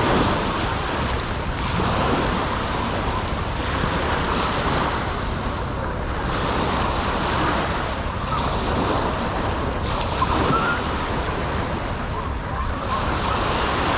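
Small waves breaking and washing up the beach, the surf rising and easing every few seconds, with wind buffeting the microphone.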